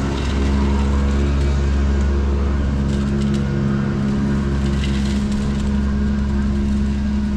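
An engine running steadily at a constant speed, a loud low drone with several steady tones over it.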